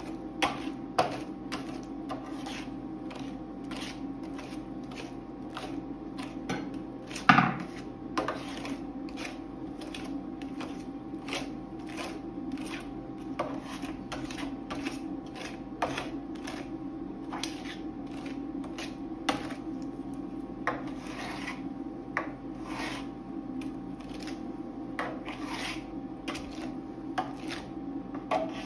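Metal spatula scraping and spreading frozen ice cream mixture across a stainless steel cold plate in short repeated strokes, with one louder clack of the spatula against the plate about seven seconds in. A steady low hum runs underneath.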